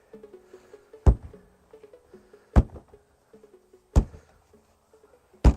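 Four sledgehammer blows on the sheet-metal body of a Lada Riva, evenly spaced about a second and a half apart. Faint background music runs underneath.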